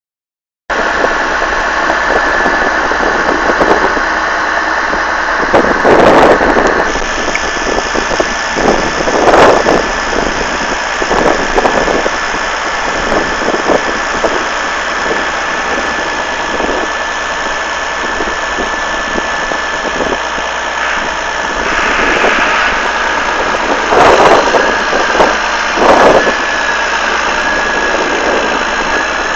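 An engine running steadily with a faint high whine over it, broken by a few loud knocks or bangs.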